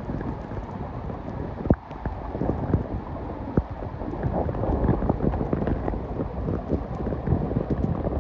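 Stream water rushing and bubbling as heard through a phone's microphone held under the water: a muffled, steady low rumble with frequent crackling clicks and a couple of sharper knocks, the loudest a little under two seconds in.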